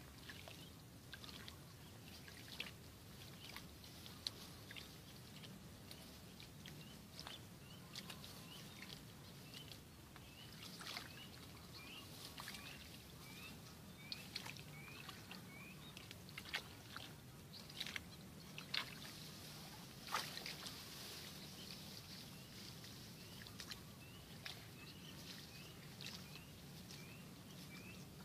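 Faint rustling and sharp snaps of rice plants and grass as weeds are pulled out by hand in a wet paddy. From about a third of the way in, short rising chirps repeat roughly twice a second.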